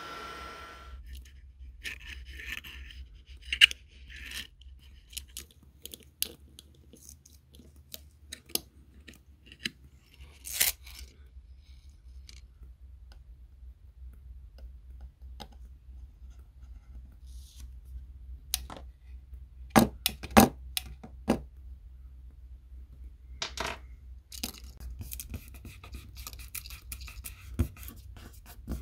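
A heat gun runs with a steady blowing hiss and a single whine, then cuts off about a second in. After that come small clicks, taps and scrapes of a nylon spudger and fingertips on an iPhone's metal mid-frame as the adhesive-backed wireless charging coil is pried up and pressed back down. The loudest taps come twice in quick succession about twenty seconds in.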